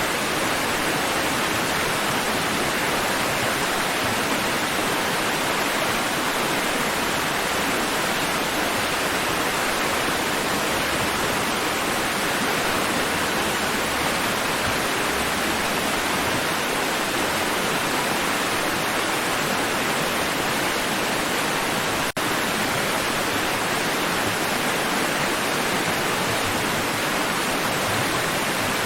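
Steady, even rush of water noise with no rise and fall of separate waves, broken by one brief dropout about 22 seconds in.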